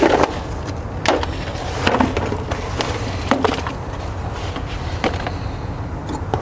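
Hand tools being set down and handled: a few separate sharp metal clicks and clanks, about a second apart, over a steady low hum.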